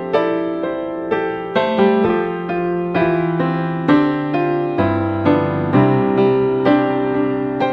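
Background piano music: struck notes, each fading away, in a gentle melody over sustained lower notes.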